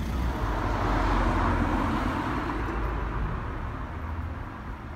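Street traffic: a car passes, its noise swelling about a second in and fading over the next two seconds, over a low steady rumble.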